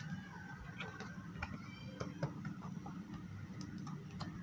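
Faint, irregular small clicks and rustles of stiff copper wires and a plastic junction box being handled by hand while the wires are sorted for splicing.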